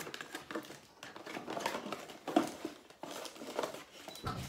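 Cardboard camera box being handled and opened: irregular rustling, scraping and light knocks of the packaging, the loudest knock about two and a half seconds in.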